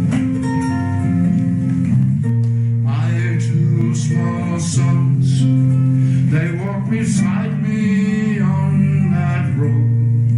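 Acoustic guitar music with held chords, and a voice singing over it in two phrases through the middle.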